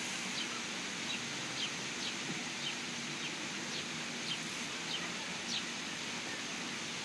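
A small bird chirping over and over, short falling chirps repeated every half second or so, over a steady outdoor hiss.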